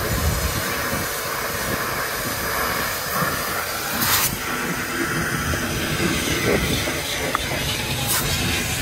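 Water spraying with a steady hiss, washing out a solar water heater's glass tubes, with a brief louder gush about four seconds in.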